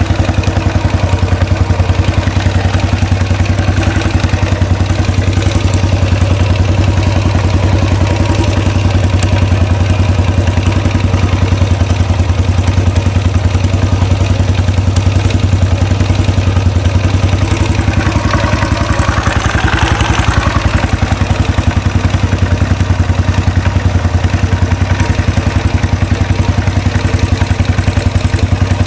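2013 Royal Enfield Classic 500's single-cylinder engine idling steadily on its first run after an engine rebuild, a strong low even beat of exhaust pulses.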